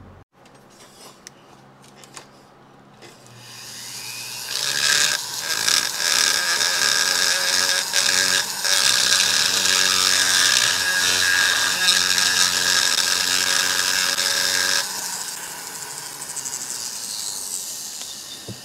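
A high-speed handheld die grinder polishing the ports of an aluminium two-stroke motorcycle cylinder. It builds up about three and a half seconds in and whines steadily with grinding noise against the metal. About 15 seconds in it drops sharply, then fades out.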